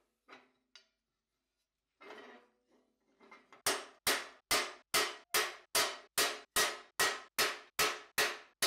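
A hammer strikes a hand-held steel punch against a 2 mm steel helmet face plate in a steady run of sharp, ringing blows, about two and a half a second. The blows begin a little over a third of the way in, after a few faint taps and a short scrape.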